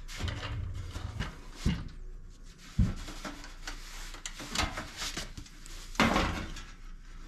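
Handling noise of a range hood's light panel: a few scattered clicks and knocks, the sharpest about three and six seconds in, as the wire quick-connects on its back are worked loose.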